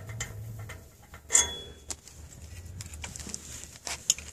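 Metal clinks and clicks of a gate opener's steel roller drive chain and its bracket hardware being handled and fastened to the gate. There are a few sharp clicks; the loudest comes about a second and a half in and rings briefly, and a short cluster follows near the end.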